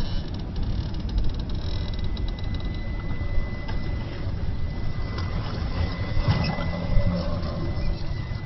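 RC4WD Trailfinder scale rock crawler crawling slowly over lava rock, its small electric motor and geartrain whining with a thin steady high tone from about two seconds in, with light clicking during the first two seconds. A steady low rumble runs underneath.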